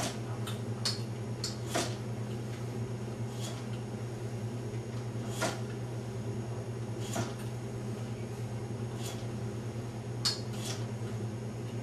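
Exercise machine's tension arm and pad clicking and knocking lightly as a hamstring curl is worked, the clicks coming irregularly every second or two, over a steady low hum.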